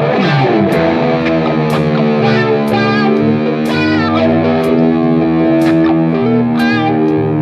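Music: distorted electric guitar through effects playing long held notes over a steady low line and regular drum hits, opening with a quick downward pitch dive.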